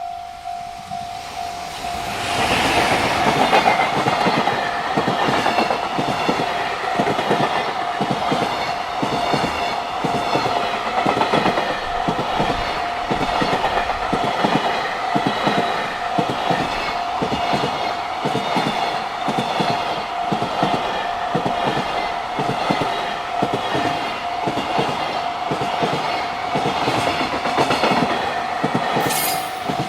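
A JR Freight train passing close by, its wheels clattering over the rail joints in a fast, steady rhythm from about two seconds in to near the end. Under it a level crossing's warning bell rings on with a steady repeating tone.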